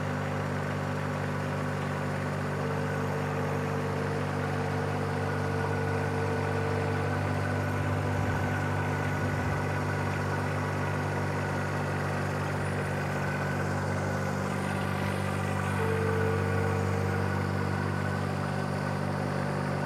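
John Deere 1025R compact tractor's three-cylinder diesel engine running steadily while it powers a loader-mounted hydraulic auger boring down into the soil. A faint higher whine comes in twice, for a few seconds early and briefly near the end.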